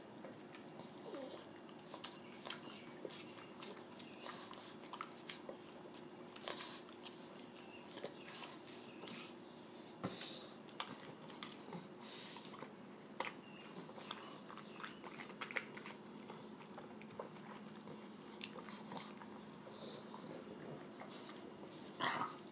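A pug chewing and biting watermelon: irregular short clicks and smacks of eating go on throughout, with a faint steady hum behind them.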